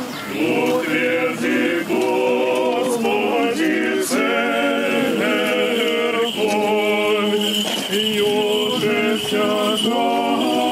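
Voices chanting an Orthodox liturgical hymn in phrases of held notes, sung during the cross procession around the church at its consecration.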